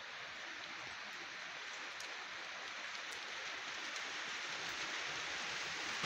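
Steady rain falling, an even hiss that grows gradually louder, with a few faint ticks of single drops.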